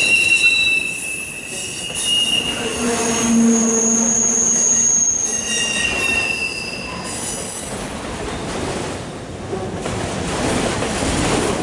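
Loaded autorack freight cars rolling past, their steel wheels squealing against the rail in high-pitched tones that come and go, over the steady rumble of wheels on track. The squealing fades out past the middle and the rolling rumble grows louder near the end.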